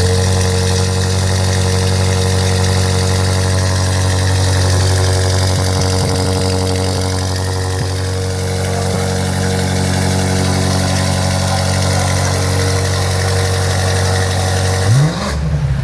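BMW G90 M5's twin-turbo V8, with freshly fitted downpipes, idling steadily just after start-up, with a short rev near the end.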